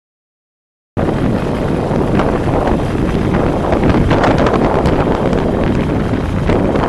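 Wind buffeting the microphone of a camera on a moving vehicle: a loud, steady rumble with scattered crackles that starts abruptly about a second in, after silence.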